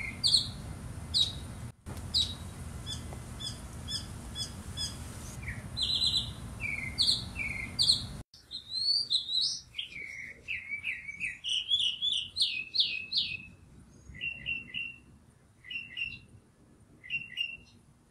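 Small birds chirping rapidly over a low background rumble. About eight seconds in the sound cuts abruptly to a cleaner bird song: quick runs of chirps, then short pairs of chirps spaced a second or so apart.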